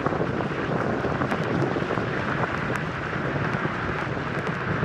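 Steady heavy rain: a dense, even rushing hiss with scattered sharp ticks of drops.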